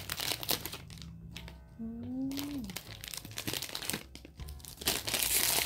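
Blind-box packaging being handled and opened by hand, with scattered crackles and a louder stretch of rustling near the end. A short voiced hum comes about two seconds in.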